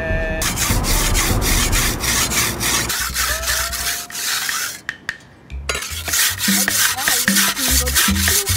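Knife blade drawn back and forth on a sharpening stone, a rasping stroke about four times a second, pausing briefly about halfway through and then going on.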